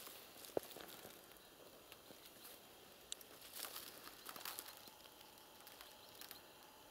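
Near quiet, with faint rustling and a few light clicks, the sharpest about half a second in.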